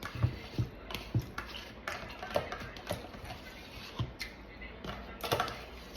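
Eating and handling noises: irregular short clicks and light knocks, with a few brief low voice sounds in the first second or so.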